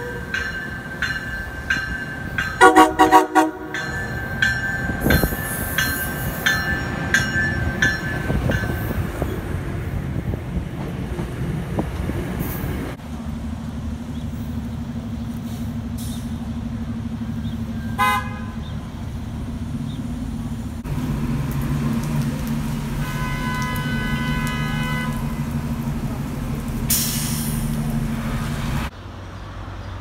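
MBTA commuter rail train horn sounding several blasts as the train approaches, the loudest about three seconds in. Then MBTA transit buses idle with a steady low engine hum, broken by a short horn toot and, a few seconds later, a longer pulsing horn.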